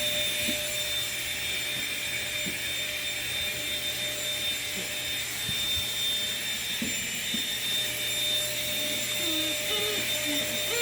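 Vacuum cleaner running steadily, a constant motor noise with a high whine.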